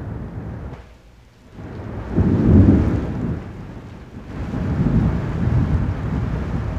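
Thunder rolling over steady rain: two long, deep rumbles, the first about two seconds in and the second a couple of seconds later.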